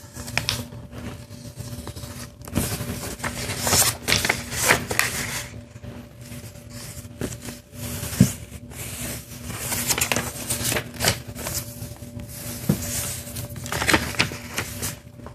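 A sheet of paper being folded and creased by hand: rustling and sliding paper with fingers pressing and running along the folds, in uneven bursts and a few sharp clicks, over a faint steady hum.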